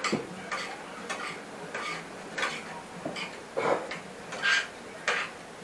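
Cutlery clinking and tapping on plates and glasses at a dinner table: a scatter of short, irregular clicks.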